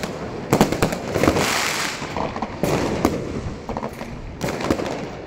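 New Year's fireworks going off: many overlapping bangs and pops, with a dense crackling hiss about a second in, thinning out and getting quieter toward the end.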